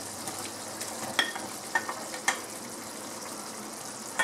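Chicken curry gravy simmering in a non-stick wok with a steady hiss, while fried chicken pieces are scraped off a plate into it with a plastic ladle; three or four sharp knocks of ladle and plate come between about one and two and a half seconds in.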